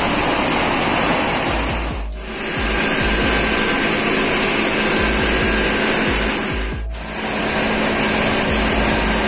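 Rice mill machinery running steadily, with a high hiss, as rice grains stream down the chutes of an optical colour sorter. The noise dips briefly twice.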